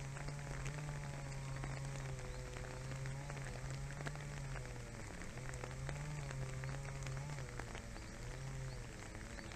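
Japanese raccoon dog rooting and feeding in grass close by: a dense run of small crackling ticks and rustles. Under it runs a steady low hum with fainter wavering tones, which drops out briefly about halfway through and again near the end.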